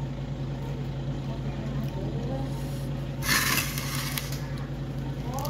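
A steady low hum with faint voices in the background, and a short burst of hiss a little over three seconds in.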